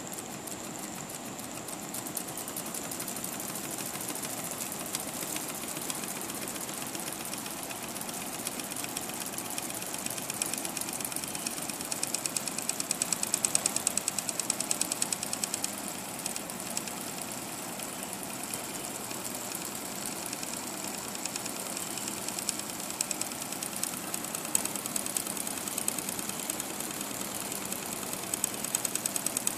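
Weeden Model 8 toy steam engine running under steam: a fast, even clatter as the flywheel spins, over a steady high hiss. The clatter grows louder for a few seconds around the middle and again near the end.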